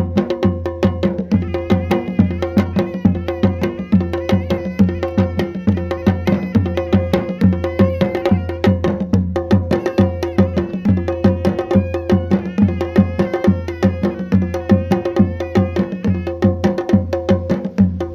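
Background music with a fast, steady percussion beat and sustained melody.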